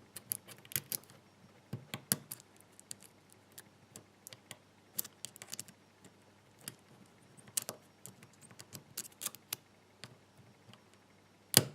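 Irregular small metallic clicks and taps of a pick pushing the pins of a seven-pin tubular lock under tension, with one louder, sharper click near the end as a pin sets.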